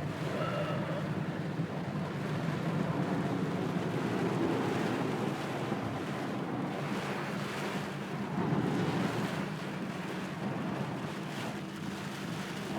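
Heavy rain on a car and its tyres running through standing water on a flooded road, heard from inside the cabin: a steady rush of noise that swells a couple of times.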